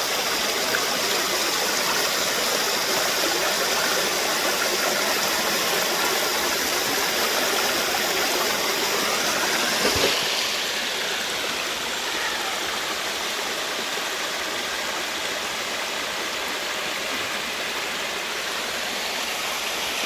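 Shallow rocky creek water rushing and splashing steadily. About halfway through there is a brief knock, and the water sound becomes slightly quieter and duller.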